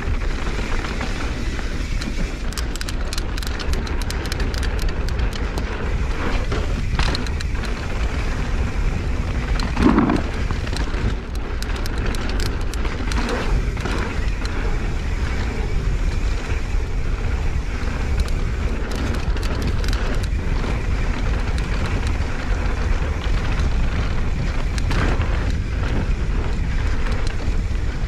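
Wind buffeting an action camera's microphone as a mountain bike rolls fast down dirt singletrack. Underneath are tyre rumble and scattered clicks and rattles from the bike over bumps, with a brief louder sound about ten seconds in.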